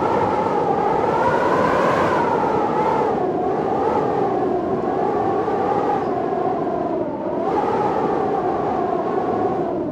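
Storm wind howling: a loud rush carrying several whistling tones that slowly waver up and down in pitch, easing briefly about seven seconds in.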